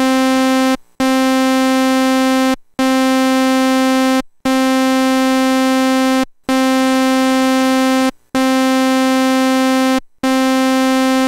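Korg Prologue analog synthesizer sounding the same held note, about middle C, over and over: each note lasts under two seconds with a short gap between, all at the same loudness. These are one oscillator recorded at different VCO volume settings and then loudness-matched, and they sound pretty much identical, with no added noise at the higher settings.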